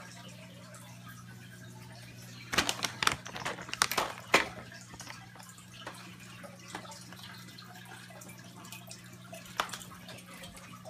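Steady low hum of aquarium equipment with water trickling and dripping. About two and a half seconds in, a run of loud clicks and rattles lasts about two seconds, and one more sharp click comes near the end.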